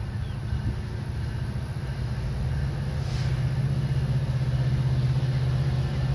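Diesel locomotive engine rumbling as the train approaches, growing slowly louder, with a brief hiss about three seconds in.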